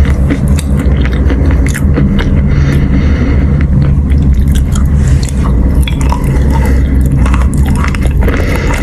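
Chalk being chewed close to the microphone: a dense run of small sharp crunches and clicks over a steady low hum.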